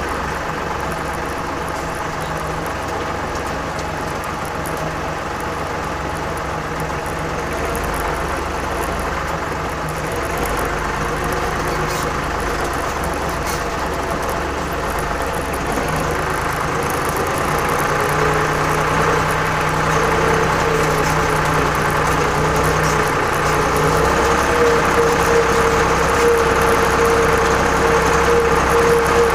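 Torpedo TD 55 tractor's air-cooled diesel engine running steadily under load while driving in four-wheel drive through deep wet snow. Its drone gets louder over the second half, with a higher whine coming in over the last ten seconds.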